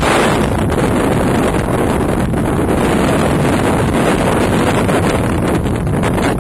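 Strong wind buffeting the camera's microphone in a loud, steady rumble.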